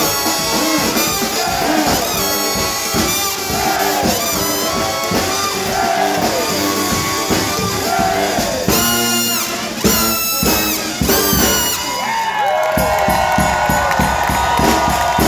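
Live brass funk band, with trumpets, trombone, saxophones and sousaphone over drums, playing a riff that repeats about once a second. A few loud ensemble hits come after that, and near the end the band holds one long final chord.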